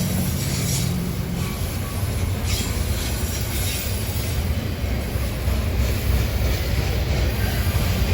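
Intermodal freight train rolling past: a steady low rumble of wheels on rail, with a few faint clicks.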